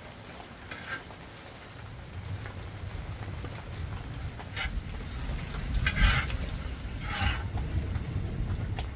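Squid and vegetables sizzling in a flat round pan on a gas burner. A wooden spatula stirs and scrapes the pan four times, loudest about six seconds in.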